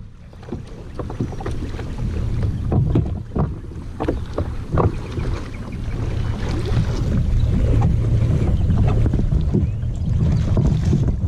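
Wind buffeting the microphone as a low rumble, with a series of knocks and bumps on a fishing kayak in the first five seconds or so as it is handled and boarded.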